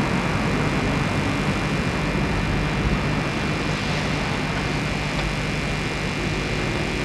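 Steady low rumble and hiss with a faint hum, with no distinct events.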